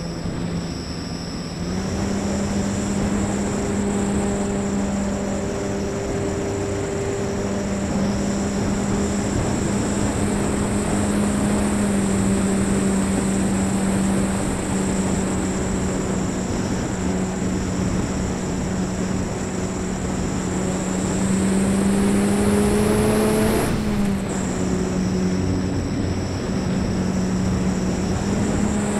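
An E-flite Apprentice S trainer's electric motor and propeller drone steadily in flight, heard from on board with air rushing over the microphone. The pitch steps up about two seconds in, climbs slowly, then drops abruptly a few seconds before the end.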